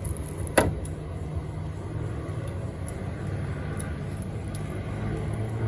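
Steady low background rumble, with one sharp knock about half a second in from the phone being handled.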